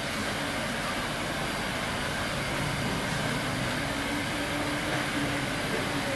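Steady room noise of a large barber shop: an even hum and hiss, with a faint low hum in the middle.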